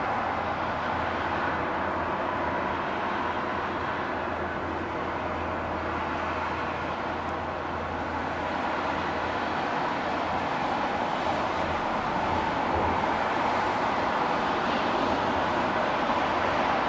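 Steady hum of distant road traffic, swelling slightly near the end.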